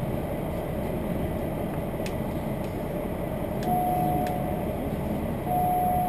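Diesel railcar running along the line, heard from inside as a steady rumble with a few faint clicks. Two short steady high tones come over it, one a little past the middle and a longer one near the end.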